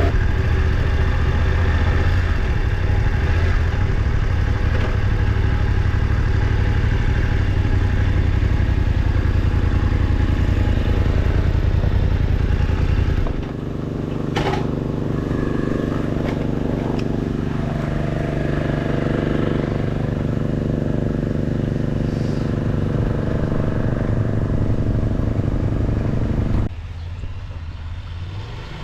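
Motorcycle engine running steadily under load while riding. About halfway through it eases off to a lower, quieter note, with one sharp click just after, and it drops lower again near the end.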